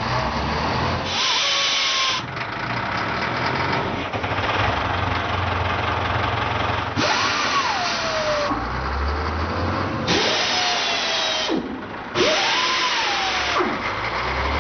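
Diesel engines of underground mining machinery running loud, the noise changing abruptly every second or two, with a whine that rises and falls back about three times.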